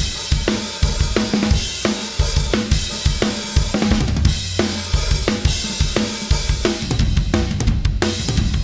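Intro music with a steady drum-kit beat: kick drum, snare and cymbals.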